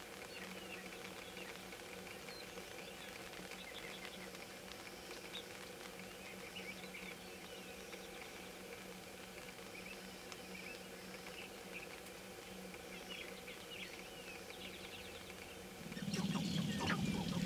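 Sharp-tailed grouse courtship calls on a lek: scattered faint clucks and chirps over a steady low hum. About a second and a half before the end the flock breaks into a sudden, much louder outburst of low cooing and rapid cackling.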